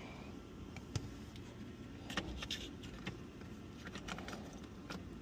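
Faint scattered clicks and light rattles of small parts being handled as a replacement ignition switch is fitted into a car's steering column.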